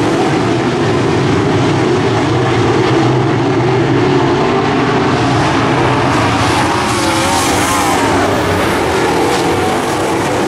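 A pack of dirt-track modified race cars running at racing speed around the oval, their V8 engines blending into a loud, steady drone, with individual engine notes wavering in the second half as cars go by.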